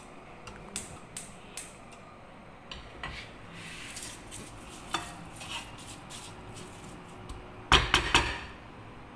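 Wooden spatula stirring and scraping a frying spice mixture with curry leaves in a non-stick pan, with scattered knocks against the pan and a louder clatter of strokes near the end.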